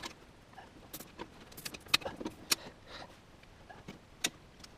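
Scattered sharp clicks and light rustling of cables being handled and routed inside a desktop PC case, with the strongest clicks about two, two and a half and four seconds in.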